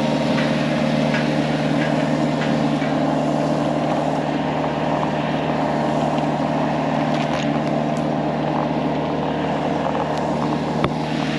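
Diesel engine of a compact construction machine running steadily under light work, its pitch holding level, with a few faint clicks and one sharp click near the end.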